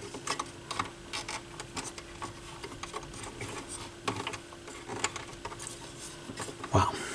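Irregular clicks, taps and short rattles of hands working parts loose inside an opened turntable base, over a steady faint hum.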